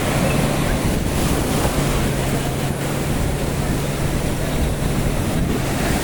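Jet ski running at speed over the sea, its engine a steady low drone under loud wind rushing over the microphone and water spray.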